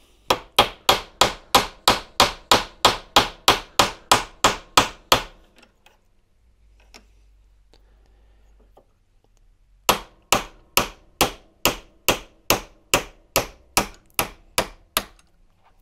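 Hammer tapping a steel socket to drive the armature shaft of a Shurflo 12 V pump motor out of its seized bearing: a run of steady, even blows about three a second, a pause of about four seconds, then a second run of blows.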